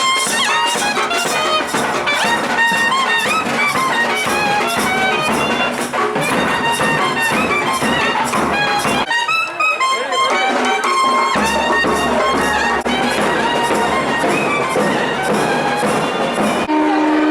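Nadaswaram playing an ornamented, gliding melody over regular thavil drum strokes: Tamil temple ensemble music.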